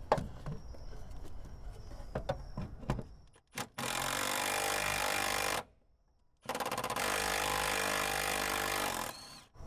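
Milwaukee 3/8-inch cordless impact wrench hammering in two runs of about two to three seconds each, with a short pause between, as it backs out a fuel filter bracket bolt. Light clicks and knocks of the socket being fitted onto the bolt come before the first run.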